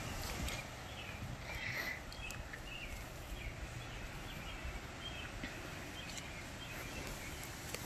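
Outdoor ambience: steady wind noise on the microphone, with short high chirps here and there, most of them in the first few seconds.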